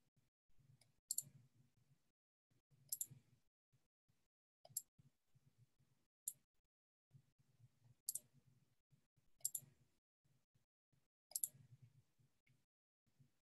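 Near silence broken by about seven faint, sharp clicks at a computer, one every one and a half to two seconds, with a faint low hum around each.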